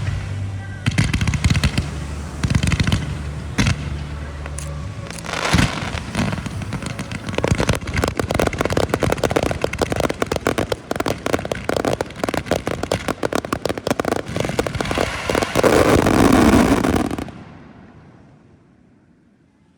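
Fireworks show: rapid crackling and banging shells, building to a dense, loud finale that stops abruptly about 17 seconds in, followed by a fading echo.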